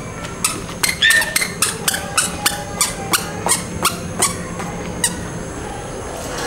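A toddler's quick footsteps on a concrete road: a regular run of short, sharp ticks, about three a second, that stops about five seconds in.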